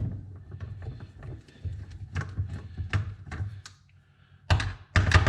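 Hand tools working on metal: irregular clicks and knocks of a wrench on the 10 mm bolts while the fuel injectors are taken off an LS3 intake, with a louder clatter near the end.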